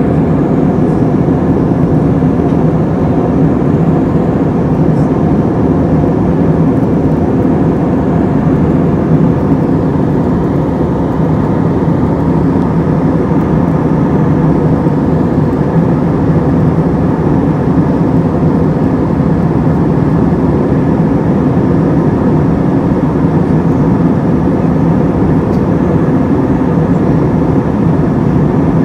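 Steady cabin noise of an Airbus A321-231 in cruise: the constant drone of its IAE V2500 turbofan engines mixed with airflow rushing over the fuselage, heard inside the cabin with a low, even hum.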